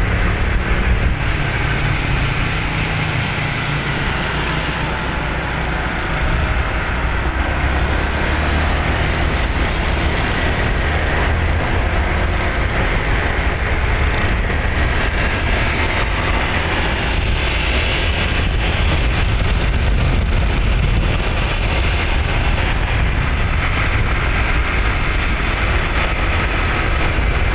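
Steady road-vehicle noise: continuous low engine rumble mixed with road and wind noise, with no horn tune sounding.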